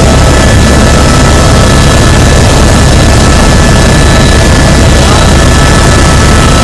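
Helicopter engine and rotor noise heard from inside the cabin in flight: a loud, steady din with a constant high whine over it.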